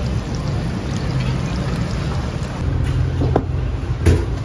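Samosas deep-frying in a wok of hot oil: a steady sizzle over a low rumble, with a few clicks and a sharp knock near the end.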